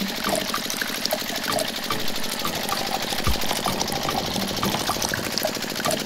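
Small electric motor of a miniature soybean-processing machine running with a steady buzz, while liquid dribbles from its spout into a small plastic bucket in frequent short drips.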